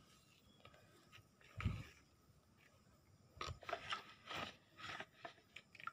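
Faint scraping and rustling of a hand working a soil and cocopeat potting mix in a plastic pot, in a run of short strokes over the second half, after a single soft thump about a second and a half in.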